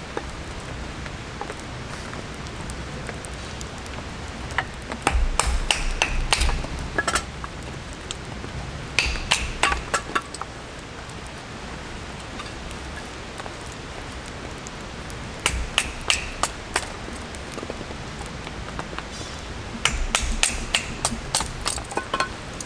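Steady rain falling, with four short bursts of sharp, ringing clinks and knocks of hard objects being handled.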